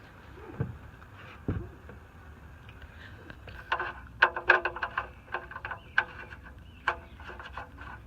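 Two dull knocks, then a quick run of sharp metallic clinks and clicks from tools and parts being handled during an oil change, busiest just past the middle.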